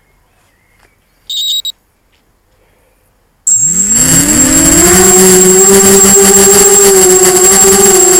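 Two short high beeps, then about three and a half seconds in the Diatone Blade 250 quadcopter's electric motors spin up with a rising whine and settle into a loud, steady buzz with a high whistle as it lifts off.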